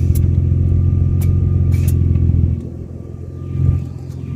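A steady low mechanical hum with a few sharp clicks. It drops away about two and a half seconds in, swells briefly, then falls quiet again.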